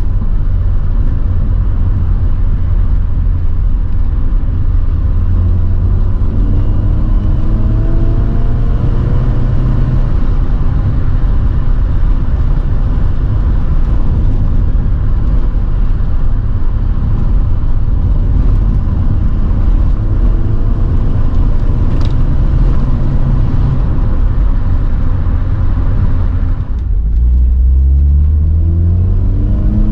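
MG Metro's 1275 cc A-series engine, with its gearbox in the sump, pulling under load on the road. The revs climb twice, drop briefly in a gear change near the end, then climb again.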